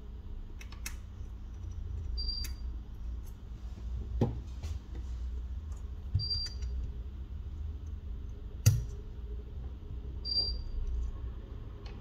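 Small repair tools clicking and tapping against a smartphone's parts during disassembly: a handful of scattered sharp clicks, the loudest a little past two-thirds of the way through, over a low steady hum.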